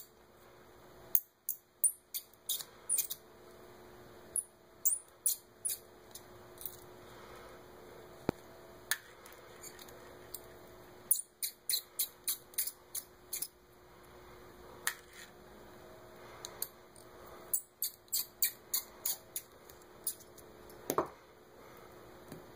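Tiny screws being turned out of the side plate of an all-metal RC retract: scattered short, high-pitched squeaks and clicks of metal on metal, some in quick runs.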